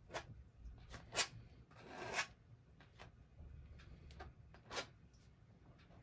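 Palette knife scraping oil paint across canvas in a handful of short strokes, the sharpest about a second in, a longer drawn stroke around two seconds, and another near the end.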